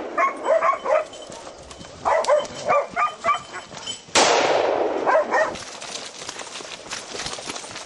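Hunting dogs barking in quick clusters of short yelps. About four seconds in comes a sudden loud bang that dies away over about a second, and the barking stops soon after.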